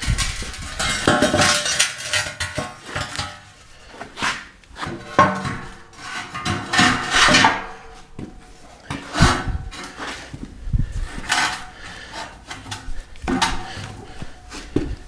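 Steel tubing being handled and knocked into place: irregular metal clanks and clinks, some leaving a short ring.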